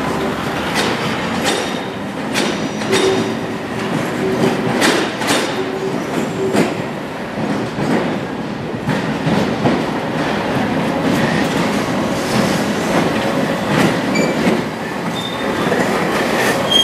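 London Underground C stock train pulling out over pointwork, its wheels clattering in sharp clicks over the rail joints and crossings, densest in the first seven seconds. Near the end an A stock train runs in, with a light, high wheel squeal.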